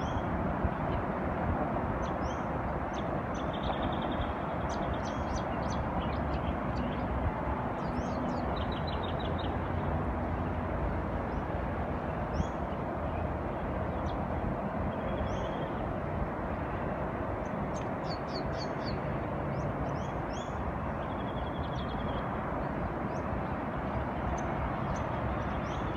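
Steady hum of distant road traffic and wind, with small birds calling throughout in short high chirps and a few brief trills.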